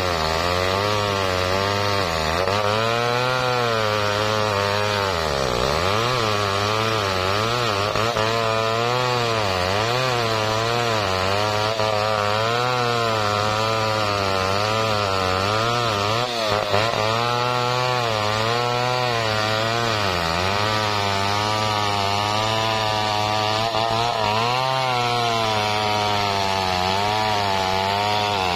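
Large two-stroke chainsaw (a Stihl 070) at full throttle, ripping lengthwise along a big hardwood log. The engine note wavers up and down continuously as the chain bogs and recovers in the long cut, dipping deeper a couple of times.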